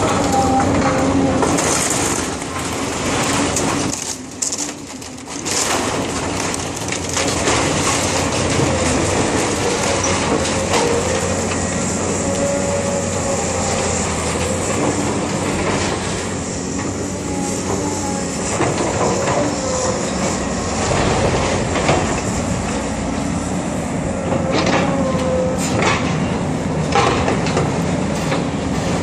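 Caterpillar 320D hydraulic excavator tearing into a building with its demolition grapple: the machine running under load over continuous crunching and grinding of wood and sheet metal, with metal squeals and crashes of falling debris. It eases off briefly about four seconds in.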